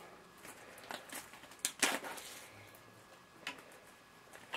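Packaging of a DVD box set being handled: a few faint, scattered clicks and rustles, the loudest just under two seconds in.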